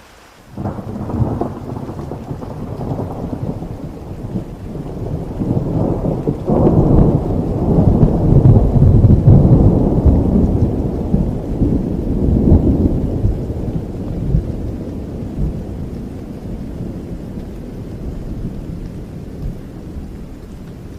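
Rolling thunder over heavy rain. The low rumble breaks in abruptly about half a second in, swells to its loudest around the middle, then slowly dies away under the steady rain.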